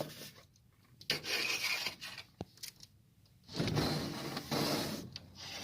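Rubbing and scraping noises in three bursts, the longest near the end, with a single sharp click in the middle.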